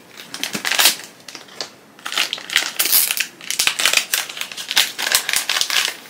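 Crinkling and rustling of a foil packet being handled and opened by hand, in irregular bursts.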